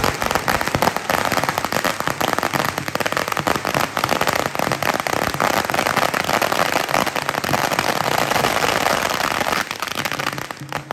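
A string of firecrackers going off in a rapid, unbroken crackle of pops. It starts suddenly and thins out near the end.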